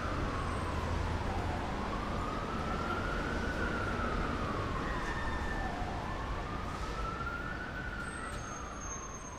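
A siren wailing: one tone slowly rising and falling, about every four seconds, over a steady rushing background noise.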